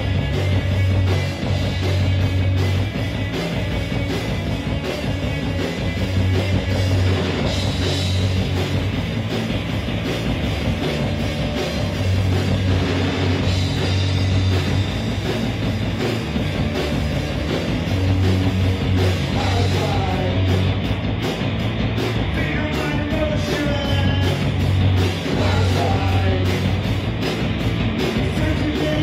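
Rock band playing a song on electric guitars and a drum kit, with strong held bass notes underneath.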